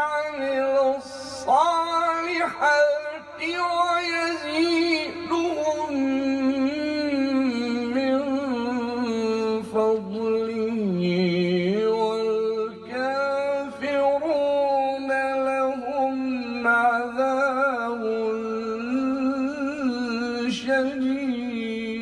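A male Quran reciter's voice in melodic recitation, drawing out long ornamented phrases on held notes whose pitch wavers and slides.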